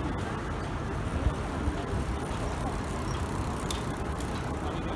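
Steady outdoor city noise: a low, even rumble of road traffic.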